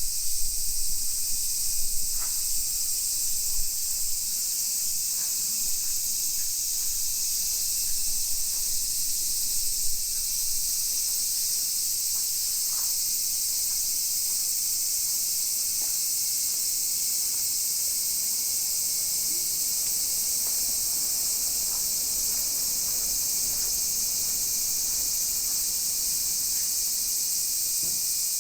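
Steady high-pitched chorus of evening insects, with a few faint clicks and some low rumbling in the first ten seconds.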